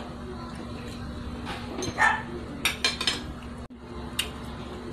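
Brief, scattered clinks of spoons on plates and bowls and soft eating noises during a meal, over a faint steady hum.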